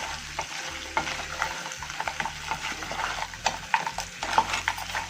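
Crab pieces frying in oil and masala in a pan, sizzling while being stirred, with irregular clicks and scrapes of the spoon and shells against the pan.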